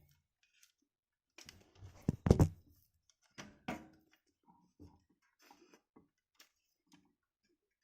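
Scattered clicks and knocks of hands handling cables and a connector inside an opened computer power supply, loudest in a cluster about two seconds in, then lighter ticks.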